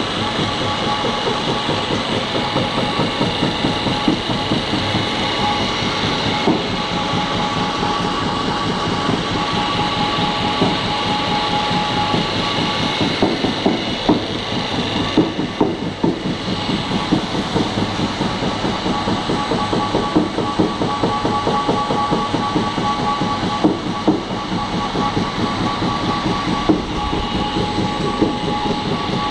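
LEHRA 70 mm briquetting press running under a flywheel drive, with a steady fast knocking and clatter over a constant machine whine.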